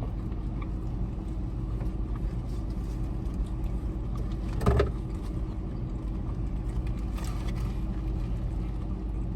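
A car engine idling steadily, a low hum heard from nearby, with a brief voice sound about halfway through.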